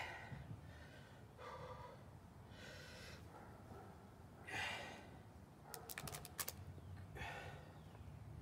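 A man's heavy straining breaths, a series of hard exhales and gasps about every one to two seconds, as he bends two taped-together nails by hand; the loudest breath comes about halfway through. A quick run of sharp clicks comes about six seconds in.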